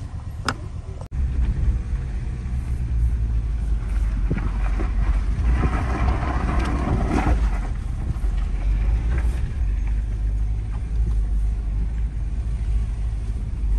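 A vehicle on the move: a steady low rumble that starts suddenly about a second in, with a louder rushing noise swelling from about four seconds in and fading about seven and a half seconds in.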